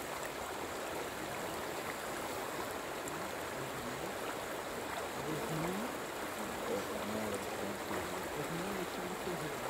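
Steady rush of flowing river water, with faint murmured voices under it.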